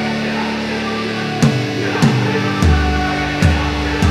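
Background rock music with guitar; a steady drum beat comes in about a second and a half in, with a heavy bass joining shortly after.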